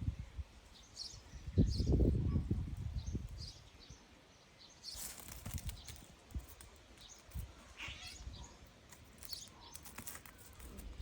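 Small songbirds chirping on and off, with a low rumble about two seconds in and a brief rustle about five seconds in.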